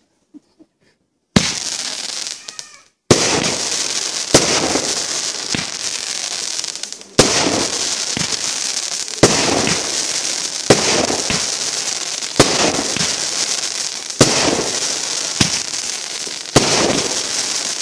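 Consumer fireworks cake firing shot after shot, starting about a second and a half in: about ten sharp bangs, one every one to two seconds, each followed by a dense crackling hiss of sparks.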